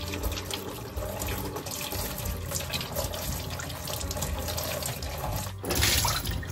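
Tap water running into a steel plate of green chillies in a stainless steel sink while hands rub and rinse them. Near the end the water is tipped off the plate into the sink, a short, louder splash.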